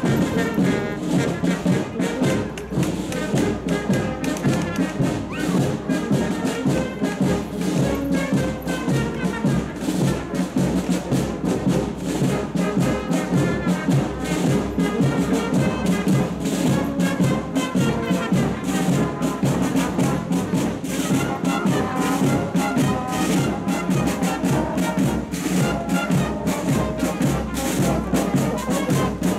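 A marching brass band playing a march: euphoniums, tubas and cornets over a steady beat of side drums.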